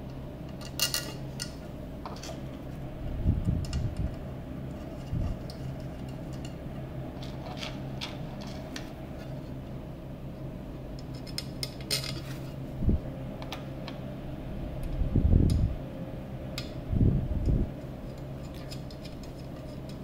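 Small M2.5 screws and brass standoffs clinking as they are fitted by hand into a kit's base plate, with a few duller knocks as the plate is handled on the table. A steady low hum runs underneath.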